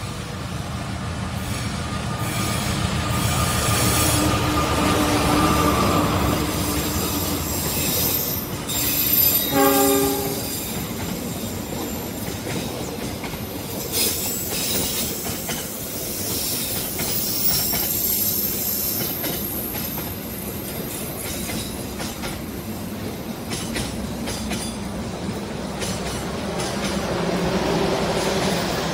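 A diesel-hauled passenger train passes close by, with engine rumble and steel wheels rolling and clicking over the rail joints. A short locomotive horn blast sounds about ten seconds in. Near the end the noise of a second passing train builds up.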